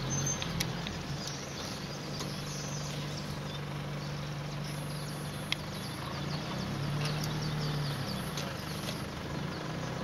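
A vehicle engine idling steadily, with a colony of weaver birds chattering in many quick, high chirps over it.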